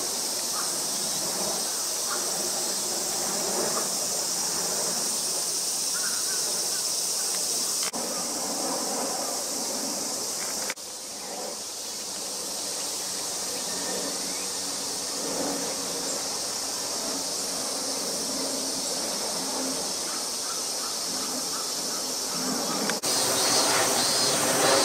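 Insects buzzing steadily at a high pitch, over the low rumble of a jet airliner passing overhead. The sound breaks off abruptly three times, at about 8, 11 and 23 seconds.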